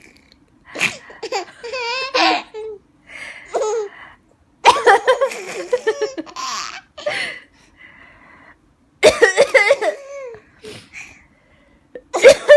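Someone laughing in repeated high-pitched bouts with coughs mixed in: coughing that breaks into laughter.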